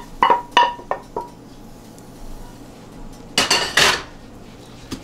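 A stainless steel frying pan knocking and ringing against the rim of a stainless steel mixing bowl several times in the first second, as sautéed onions are scraped out of it with a wooden spatula. About three and a half seconds in there is a brief, louder scrape in the bowl.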